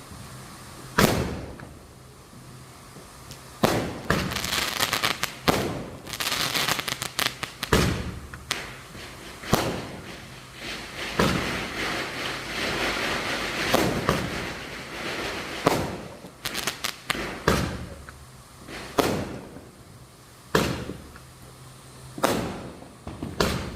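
Firecrackers going off. Single loud bangs, then a long run of rapid crackling through the middle, then more separate bangs a second or two apart.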